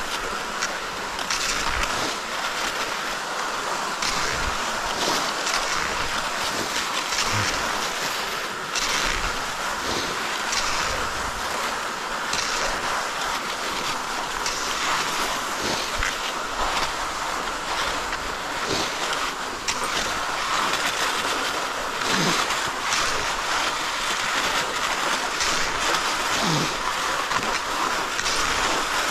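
Cross-country skis swishing along groomed classic tracks in a steady striding rhythm, with repeated short crunches of poles and skis on the snow.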